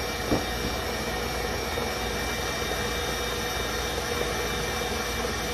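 Electric mixer running steadily, beating eggs and sugar for a sponge cake batter. A short knock sounds about a third of a second in.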